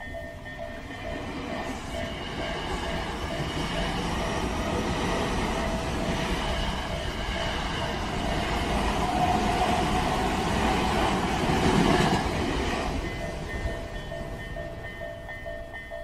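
Electric commuter train passing over a level crossing. Its running noise builds, is loudest about twelve seconds in, then dies away. The crossing's electronic warning bell rings in a steady repeating pattern throughout; it is partly covered by the train and heard clearly again once the train has passed.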